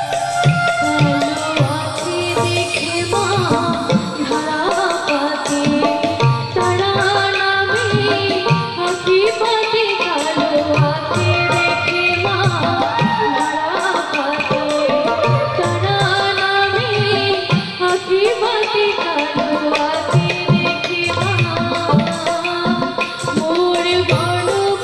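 Live song: a woman singing with harmonium, bamboo flute and keyboard accompaniment over a hand-drum beat.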